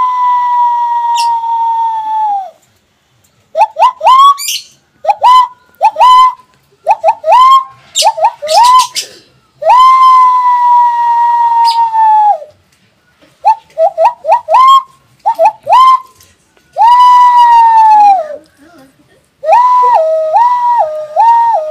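Hand whistle blown through clasped, cupped hands with the thumbs pressed together, imitating police and ambulance sirens. It alternates long held notes that droop at the end with runs of short, quick upward whoops ('wuk wuk'). Near the end it switches to a fast up-and-down warble ('wiuw wiuw').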